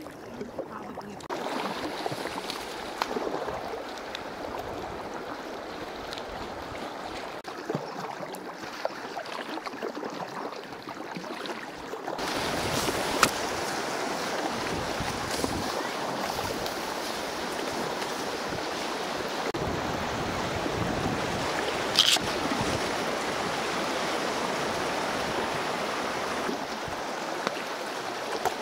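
Inflatable kayak on a river: paddle splashes and lapping water at first, then, about twelve seconds in, the louder steady rush of fast shallow water around the boat, with a couple of sharp knocks.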